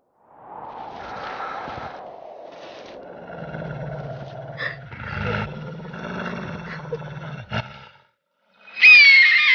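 Animal sound effects for an animation: a wild animal's low, drawn-out growl, then near the end a loud, high cry that falls in pitch.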